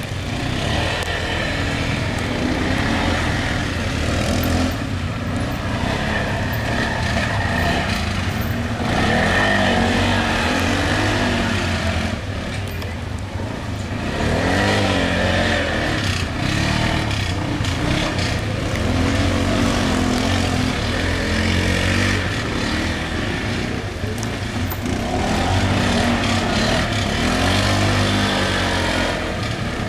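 ATV (quad bike) engine revving on and off the throttle, its pitch rising and falling again and again every few seconds.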